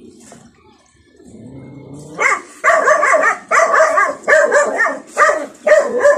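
A run of about six loud animal calls, each around half a second long and pitched, starting about two seconds in.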